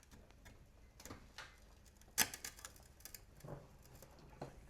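Scattered light clicks and knocks of metal tools and parts during gearbox removal, with one sharp click about two seconds in.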